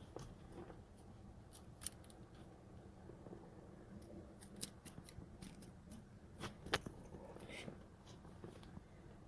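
Scattered light clicks and ticks of hand tools and small engine parts being handled, irregular, with sharper clicks about two seconds in and near seven seconds.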